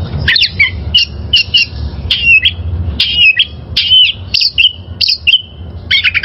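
Oriental magpie-robin (kacer) singing a fast, varied song of short whistles, chirps, trills and clicks with hardly a pause, over a faint low hum.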